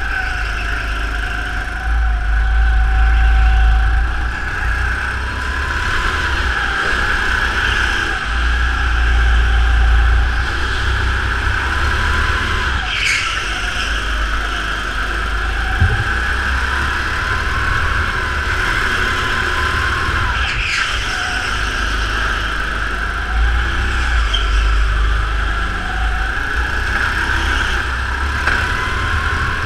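Go-kart engine heard from on board while lapping, its pitch rising and falling again and again as it accelerates out of corners and lifts into them, over a steady high whine and a heavy low rumble. Two short sharp sounds stand out, about halfway and two-thirds of the way through.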